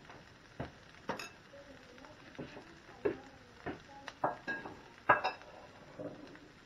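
Kitchen clatter of dishes and utensils: about ten irregular sharp clinks and knocks of metal and crockery, some ringing briefly, the loudest about five seconds in.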